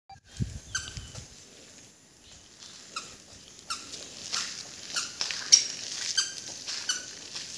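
A toddler's squeaky shoes chirping with each step as he walks, a short high squeak about every two-thirds of a second. There is a low thump at the very start.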